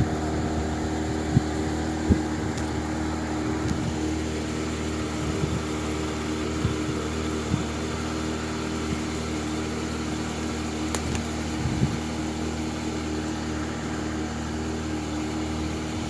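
Small boat engine running steadily at a constant pitch as the boat moves along the channel, with a few faint knocks.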